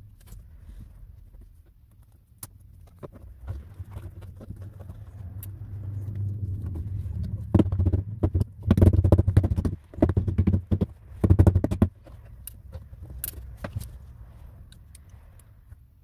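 A rubber mallet taps sound-deadening mat onto the inner metal panel of a VW Passat B6 door. It makes dull, booming knocks in several quick runs through the middle, pressing the mat down against the sheet metal. Before and after, there are lighter crackles and clicks of the mat being handled.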